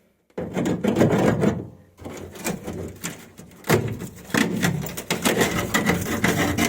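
Irregular knocking and rattling from a washing machine's drum and cabinet being handled, typical of a tub loose at a rotted-out shock-absorber mount. The knocks come thick and uneven from about two seconds in.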